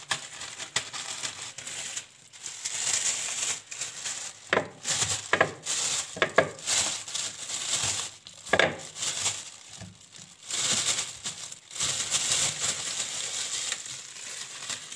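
Thin plastic freezer bag crinkling and rustling in irregular bursts as it is handled and filled with whole peeled oranges.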